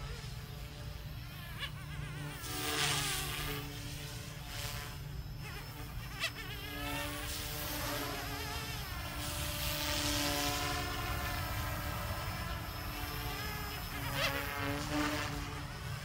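Small electric Goosky S2 RC helicopter with a heavy resin-printed airframe in flight: its motor and rotors make a high, buzzing whine that wavers up and down in pitch as it manoeuvres.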